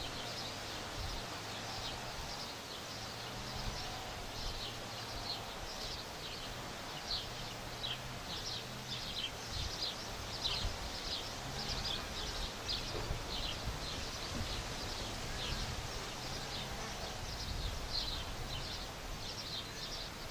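Small birds chirping, many short high calls in quick succession, over a steady background noise.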